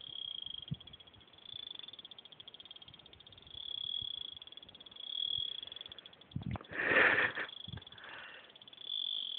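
Insects trilling in a steady, high, pulsing chorus, with a short noisy burst about seven seconds in.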